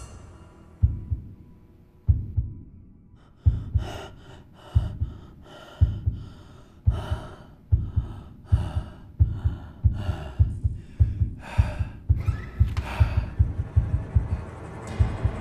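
Heartbeat sound effect, low thuds that start slow and speed up until they come several times a second, under heavy, gasping breathing that quickens with it.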